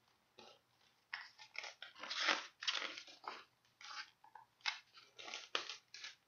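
Paper rustling and crinkling as the pages of a hardcover picture book are turned and the book is handled close to the microphone, in a string of irregular bursts over about five seconds.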